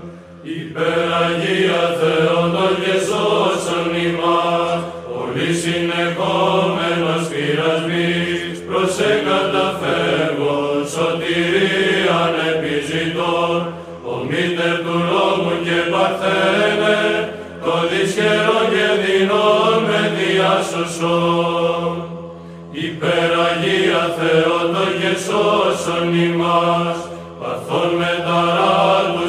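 Byzantine chant sung by a choir over a steadily held drone note (the ison), in long phrases with brief pauses between them.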